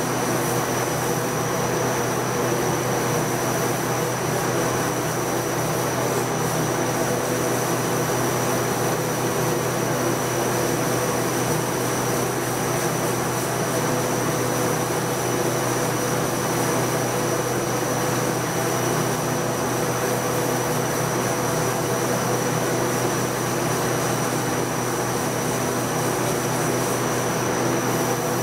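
Sandblaster blasting a sheet of glass: a steady hiss of compressed air and abrasive grit with a constant machine hum underneath, unbroken throughout.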